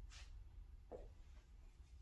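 Near silence, with a faint swish of a broadsword blade cutting the air at the start and a soft thud about a second in.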